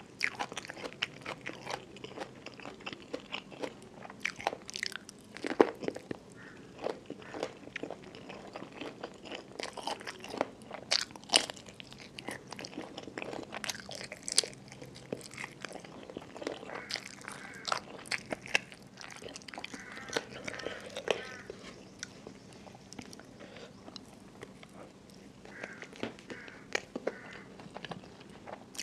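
Close-miked eating sounds of a person biting and chewing chicken feet and rice with crispy catfish chili paste: wet chewing broken by frequent sharp crunches and clicks.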